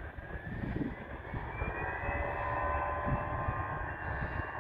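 Distant Airbus A320 jet engines (CFM56 turbofans) spooling up for takeoff: a rising whine of several tones that climbs for about two seconds and then holds steady at takeoff thrust.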